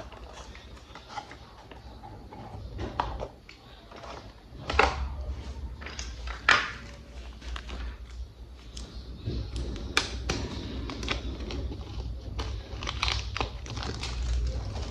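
Plastic toy train parts and packaging being handled, with irregular clicks, taps and knocks, the two loudest knocks about five and six and a half seconds in, over a low steady hum.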